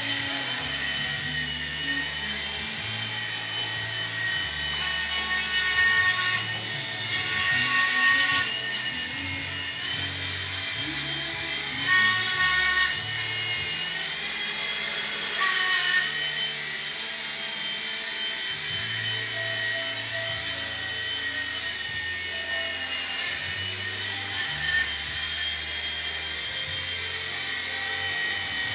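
Blade mSR micro RC helicopter flying: a steady high-pitched whine from its motors and rotors that wavers and shifts in pitch several times. This is the sound its owner calls awful during pirouettes.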